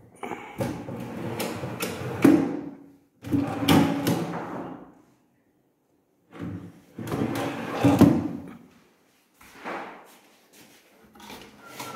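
Pull-out wicker basket drawers sliding in and out of a cabinet on their runners several times, with sharp knocks as they stop.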